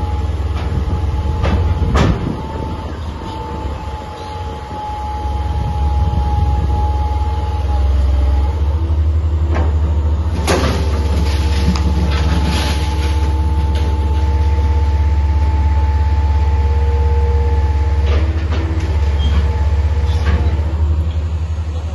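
A hydraulic excavator runs with a steady low engine rumble and a steady high tone while it knocks down a concrete building. Sharp crashes of breaking concrete and falling debris come now and then, loudest about two seconds in and again about ten seconds in.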